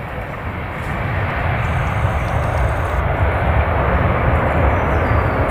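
Airbus A319's twin CFM56-5 jet engines on the landing roll-out, a steady rushing noise that grows louder about a second in and then holds.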